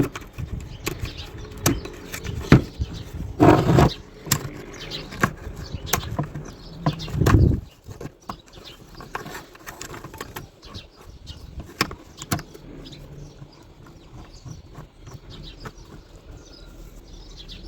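Metal clicks and knocks of a universal oil-filter wrench being adjusted and fitted around a plastic PCV valve cap, with two louder scraping handling noises in the first half, then lighter scattered clicks.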